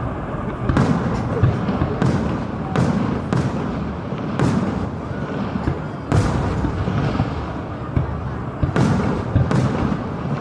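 Fireworks shells bursting one after another, about ten sharp bangs at uneven intervals over a continuous low rumble.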